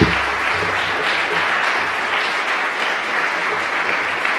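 Audience applauding steadily. A single low thump sounds right at the start.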